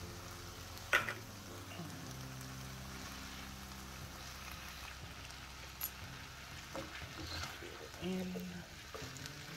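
Chicken, diced potato and carrot frying in a non-stick wok, with a faint sizzle throughout. There is a sharp knock about a second in, and a spatula stirs the pieces near the end.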